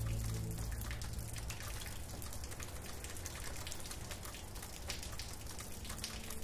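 Steady rain falling, a soft even hiss dotted with many individual drops pattering. Soft sustained music fades out just after the start.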